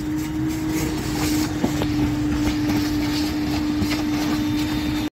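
Vacuum cleaner running with a steady hum, its hose nozzle sucking dust off a car's bare floor carpet.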